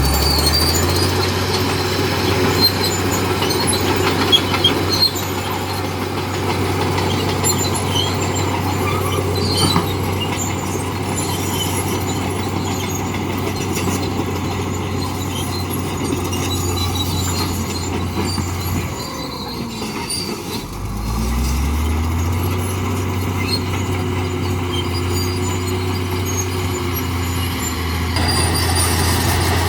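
Crawler bulldozer's diesel engine running under load, with metallic squealing and clanking from the steel tracks; about nineteen seconds in the engine note sags, then climbs back up to a steady pitch.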